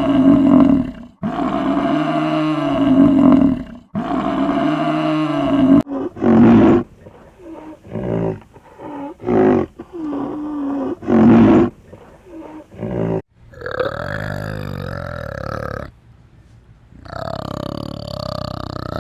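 A series of animal calls from several different animals. The same pitched call sounds three times in a row, then comes a run of shorter, varied calls, and two longer calls of another kind near the end.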